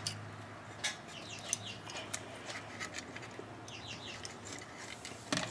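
Small plastic clicks and faint squeaks of a wire connector and thin wires being handled and pushed into place on a small electronic circuit board, with a cluster of quick clicks near the end.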